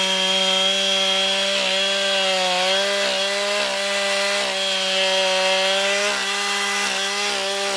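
Stihl MS 391 two-stroke chainsaw held at full throttle while cutting the face cut into a dead madrone trunk. Its engine note stays steady, sagging slightly now and then as the chain loads up in the wood.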